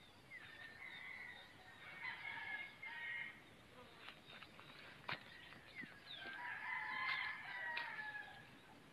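Rooster crowing twice: one long crow starting just after the beginning and another about six seconds in. A sharp click comes in between.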